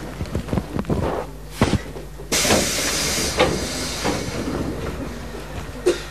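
A sudden burst of compressed air hissing from a Keikyu old 1000-series electric train's pneumatic system about two seconds in, fading away over the following seconds, with a few short knocks around it.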